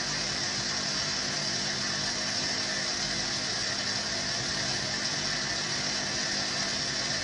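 Aquarium pump running: a steady low hum under a constant hiss, unchanging throughout.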